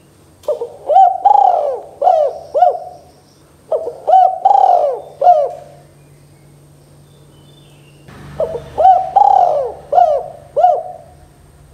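Spotted dove cooing: three phrases of several short, arching coos each, the first starting about half a second in, the next around four seconds in, and the last a little after eight seconds, with quiet gaps between them.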